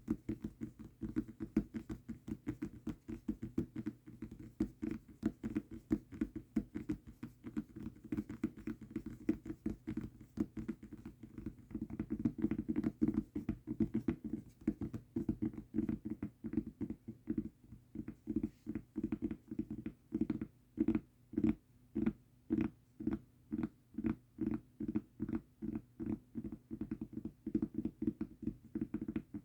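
Fingers tapping on a mousepad in quick, light, continuous taps. About two-thirds of the way through they slow to separate taps about two a second.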